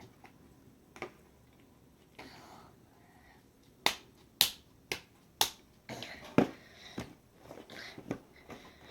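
A series of about nine sharp, dry clicks and taps at an uneven pace: a lone one near the start, then a quick run of them past the middle, with faint rustling between.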